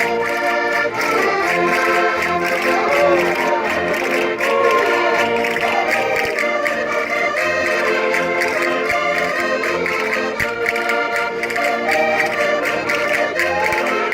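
Concertinas playing a lively folk dance tune with a steady beat, their reedy chords sustained over a regular rhythmic pulse.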